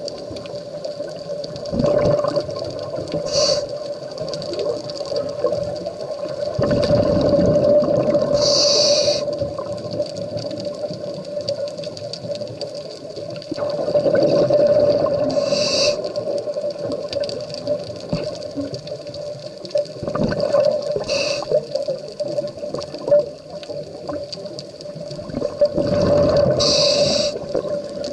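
Scuba diver breathing through a regulator underwater: a short hissing inhalation and a longer rumbling swell of exhaled bubbles, repeating about every five to six seconds, five breaths in all, over a steady hum.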